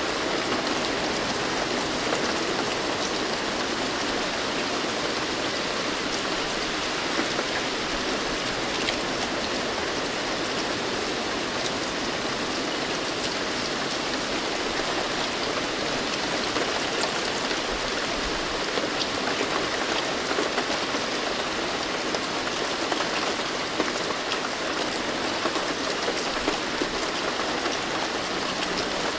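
Steady rain falling, with scattered sharp drop taps.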